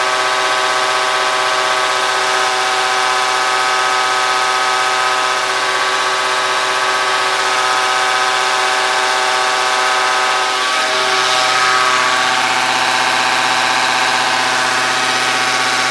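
Bosch diesel injection-pump test bench running a Bosch H-series eight-cylinder in-line injection pump, giving off a loud, steady machine whine made of many tones. About eleven seconds in, the tones slide to new pitches as the bench changes speed, then hold steady again.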